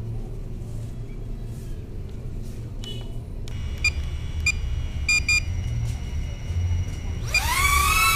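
Short electronic beeps over a low rumble. Near the end comes a quick rising whine that settles into a wavering hum: the motors of a DJI Neo mini drone spinning up for takeoff.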